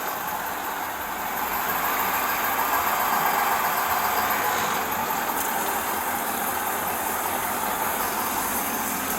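A vehicle engine running steadily at low speed as the car creeps forward, swelling slightly a second or two in.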